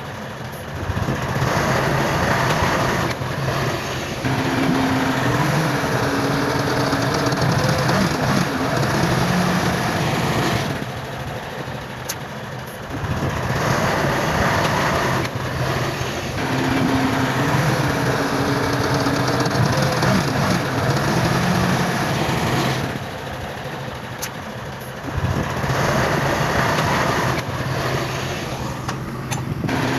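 Heavy earthmoving machinery working: diesel engines running under load, their pitch rising and falling. The sound drops back for a couple of seconds about eleven, twenty-three and twenty-nine seconds in.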